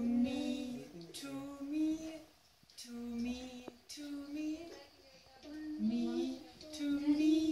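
Background song: a high-pitched voice singing a melody in short phrases of about a second each, with brief pauses between them.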